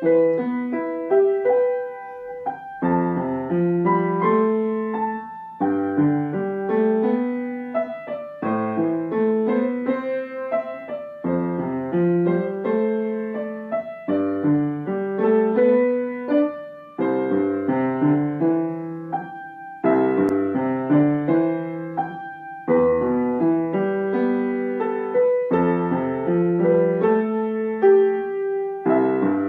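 A piano plays a slow piece. Chords and melody notes come in phrases that start afresh about every three seconds.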